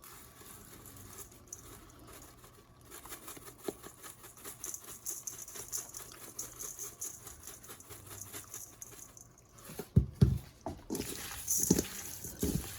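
Lemon pepper seasoning shaken from a shaker over raw chicken and shrimp: a fast, steady rattling patter. A few dull knocks come near the end.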